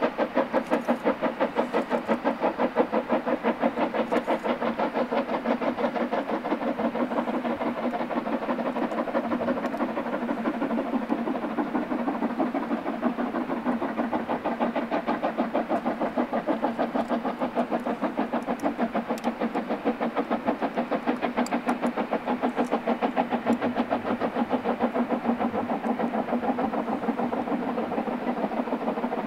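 Narrow-gauge steam locomotive working a train, its exhaust beating in a rapid, even rhythm.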